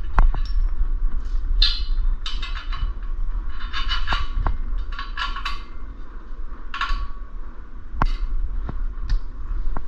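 Metal bolts and hand tools being worked by hand: a series of short metallic rattles and clicks, about a dozen spread irregularly, over a steady low hum.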